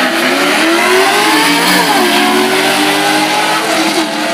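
Two Quick Eight drag cars, one of them a Corvette, accelerating hard down the strip side by side at full throttle. Their engine pitch climbs, drops back and climbs again a few times.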